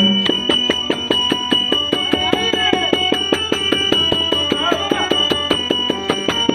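Live Dashavatar stage music: fast, evenly repeating percussion strikes with metallic clashes, over a steady high held tone.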